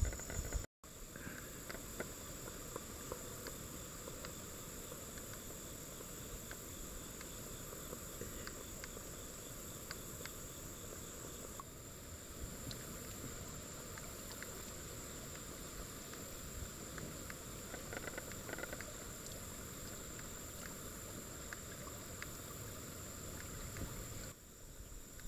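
Insects chirring in a steady high-pitched drone, with faint scattered clicks.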